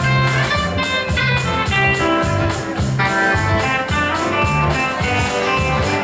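Instrumental song intro led by guitar, with bass notes and a steady beat.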